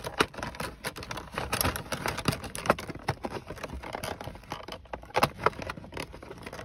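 Rigid clear plastic blister pack of Milwaukee Sawzall reciprocating-saw blades being flexed and pried open by hand: an irregular run of plastic clicks, crackles and taps as a blade is worked out of it.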